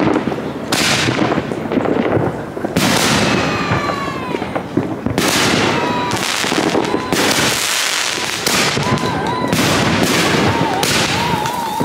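Aerial fireworks bursting overhead: a rapid series of loud bangs, about one every second or so, each followed by a hissing, crackling trail-off.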